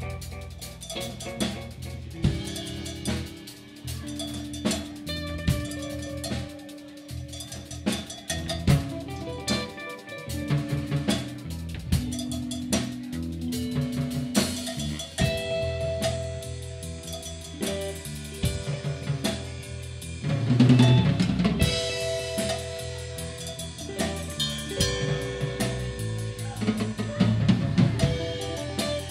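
Live rock band playing an instrumental passage: electric guitars holding sustained notes over a busy drum kit, with a louder swell about two-thirds of the way through.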